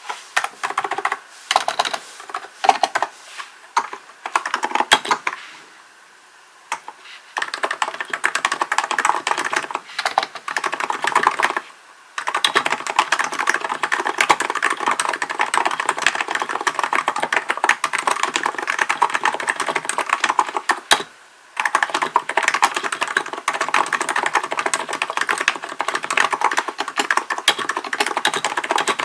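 Typing on a Hansung GK898B electrostatic-capacitive (contactless-switch) keyboard. A few scattered keystrokes come first, then fast continuous typing, broken twice by brief pauses.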